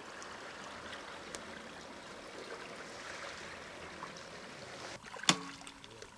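Steady wash and splashing of water around an inflatable PVC boat pushed by an electric trolling motor, dying away about five seconds in as the boat comes into the bank. Then one sharp knock.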